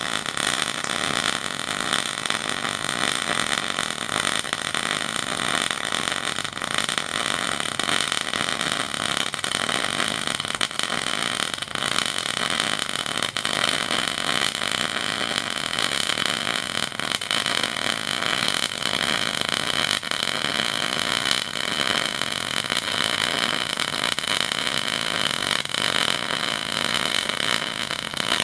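MIG welder arc running a continuous bead on thick steel, a steady crackling sizzle without a break.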